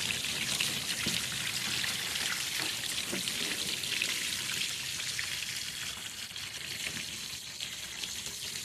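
Running water from a hose pouring and splashing onto a butterflied fish and the cleaning table as the fish is rinsed and rubbed by hand, a steady hiss of spray.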